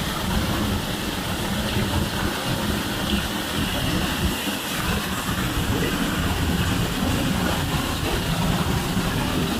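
Waterfall roaring: a steady, loud rush of falling water with a heavy low rumble.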